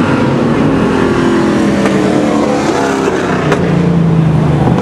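Street stock race car engines running loud and steady as a car drives along the track, the engine pitch sliding slowly up and down.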